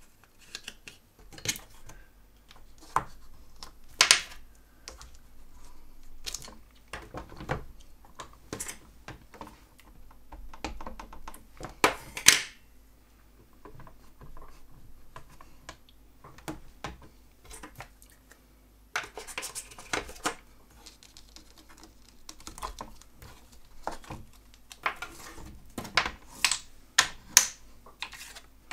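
Irregular clicks, taps and knocks of hands working a plastic stamp-positioning tool with magnets and a clear plate, as card stock is laid in and the plate is set down and lifted. Louder knocks come about 4 and 12 seconds in, and a quick run of clicks near the end.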